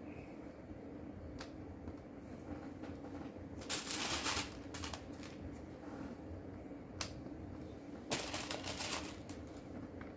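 Small plastic Lego pieces clicking as they are pressed into place, with two short rattling bursts of loose pieces being stirred, about four seconds in and again near the end.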